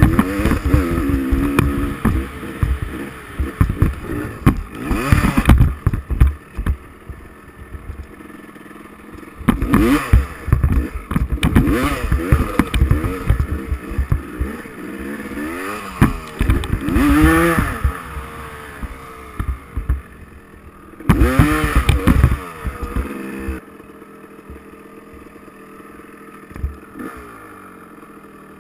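Small dirt bike engine revving up and falling off again and again as it rides a rough dirt track. Near the end it drops back to a lower, steadier idle.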